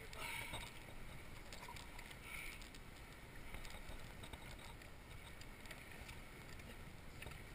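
Small waves lapping and splashing at the waterline with a low rumble, a little louder near the start and again about two seconds in.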